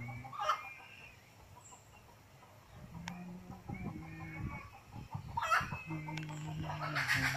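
Farmyard animals calling in three bouts, with fowl-like clucks and calls; the loudest comes near the end.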